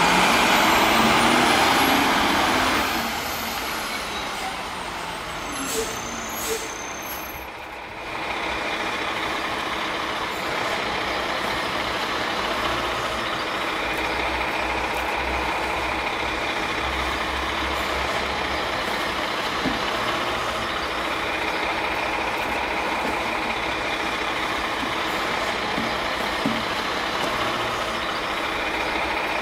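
Rear-loader garbage truck working its packer: a loud air hiss for the first three seconds, then a quieter stretch, then from about eight seconds on a steady mechanical running drone with a few light clicks.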